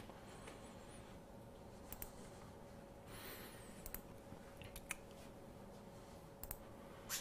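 Quiet room with a few faint, scattered clicks from a laptop being operated, over a low steady hum.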